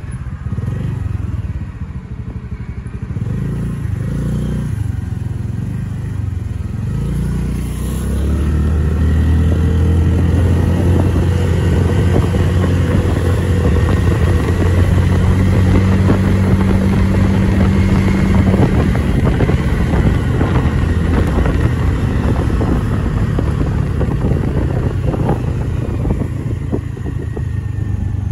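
Motorcycle engine running as the bike is ridden, growing louder about a third of the way in and then holding steady.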